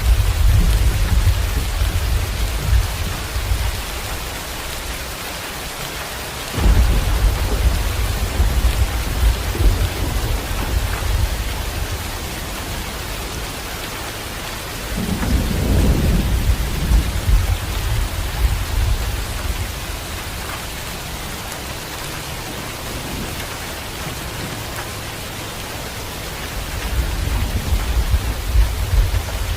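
Steady heavy rain with repeated rolls of thunder. One rumble fades out over the first few seconds, a sharp thunderclap about six seconds in rumbles on for several seconds, another roll comes about halfway through, and a further one builds near the end.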